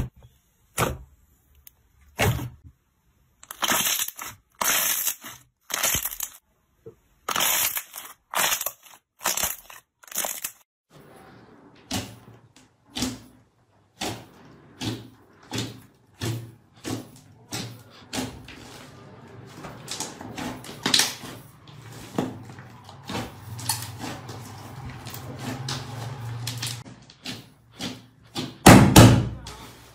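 Hands squeezing and kneading slime, giving short squishing and crackling bursts with quiet gaps between them. Partway through, thick slime is pressed and poked with the fingers, giving denser, softer squishes about once a second, with one loud squish near the end.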